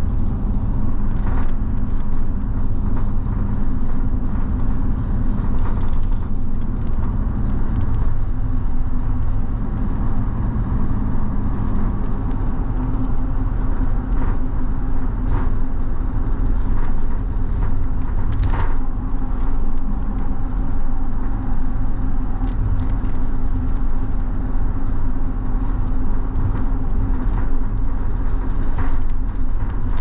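Inside a moving bus: a steady engine drone and road rumble, with occasional light rattles and clicks.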